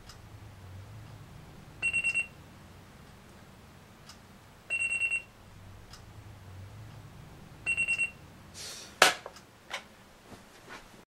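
Digital alarm clock beeping in groups of four rapid high beeps, repeating about every three seconds. Three groups sound, then there is a rustle and a sharp knock about nine seconds in, a few softer clicks follow, and the beeping stops.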